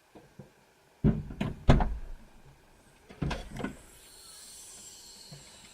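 A series of thumps and knocks in two groups, the louder group about a second in and a smaller one a couple of seconds later, followed by a faint hiss.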